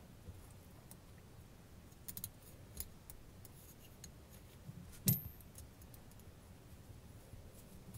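A few quiet clicks and taps of small parts being handled as a rubber O-ring is pressed tight onto the device's body, the sharpest click about five seconds in.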